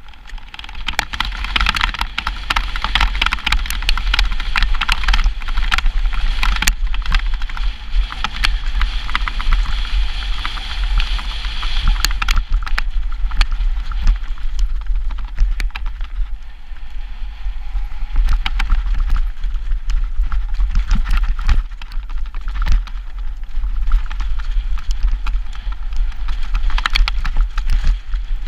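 Mountain bike riding downhill over grass and loose stones: tyre noise with frequent sharp rattles and knocks from the bike over the rough ground, under a constant low wind rumble on the microphone.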